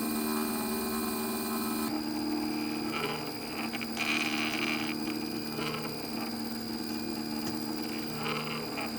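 The CNC 3018 Pro's stepper motors whining steadily as the machine drives a pen around a box outline. The tone changes about two seconds in, and there are a few short, rougher stretches along the way.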